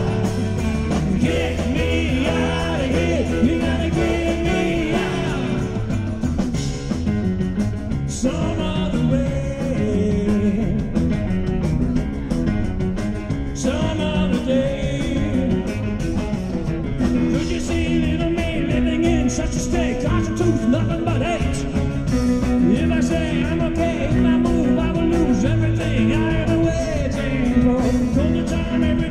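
A rock band playing live.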